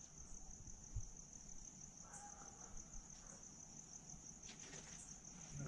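Crickets chirping in a faint, steady high trill in the night quiet, with a single soft low thump about a second in.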